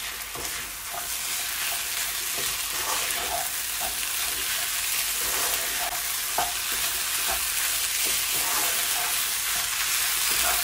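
Raw rice and mixed vegetables frying in a non-stick pan as a wooden spatula stirs them. A steady sizzle runs under repeated short scrapes of the spatula.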